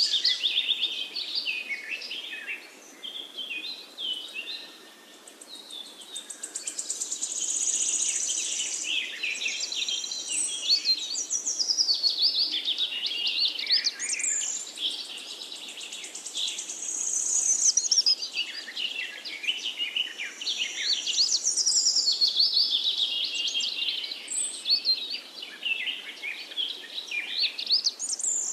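A chorus of small birds chirping and singing, many short rising and falling calls overlapping, thinning out briefly a few seconds in.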